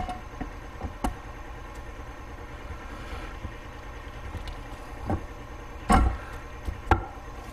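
Husqvarna FE501 crankshaft being worked down into the crankcase half's main bearing: a few short metal knocks and clicks as it seats, the loudest about six and seven seconds in, over a steady low hum.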